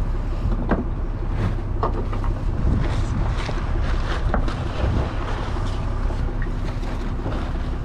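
Fishing boat's engine running steadily at sea, a constant low hum, with wind buffeting the microphone and a few short knocks on deck.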